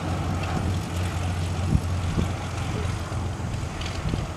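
Cessna 182T Skylane's six-cylinder Lycoming IO-540 engine and propeller running at low power as the plane rolls along the runway after touchdown, a steady low drone. A few low wind buffets hit the microphone.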